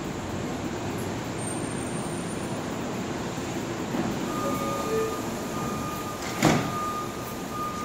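R179 subway train standing at the platform with its equipment running steadily. A steady high tone starts about four seconds in, and the sliding doors bang shut a little after six seconds.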